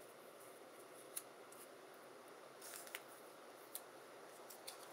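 Faint handling of die-cut paper floral pieces being set down on a cutting mat: a few soft ticks and light paper contacts scattered through otherwise near silence.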